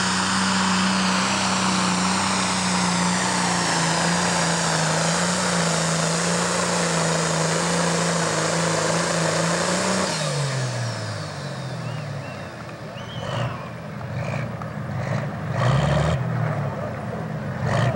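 Turbocharged diesel engine of a John Deere Pro Stock pulling tractor running flat out at a steady high pitch under full load on the sled. About ten seconds in the throttle comes off: the engine note drops away, a high whine falls with it, and the engine settles into a quieter idle, with a low thump near the end.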